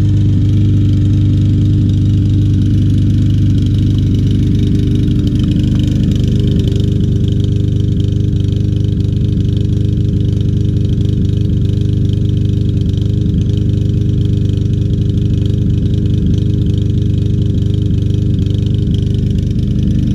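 Troy-Bilt TB200 mower's 150cc Briggs & Stratton 625EX engine running steadily at a constant speed, with the engine miss that carburetor cleaning has not cured.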